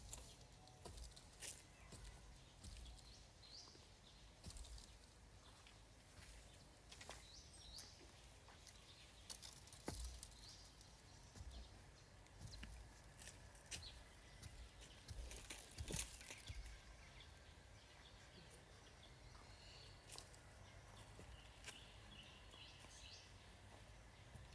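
Near silence: faint outdoor farm ambience with scattered soft knocks and clicks and a few faint bird chirps.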